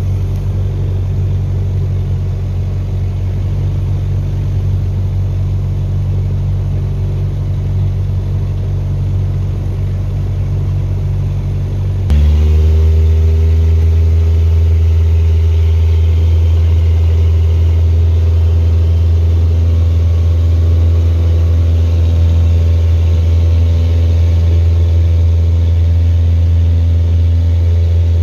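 Light aircraft's piston engine running steadily, then jumping to a louder, higher-powered note about twelve seconds in and holding there.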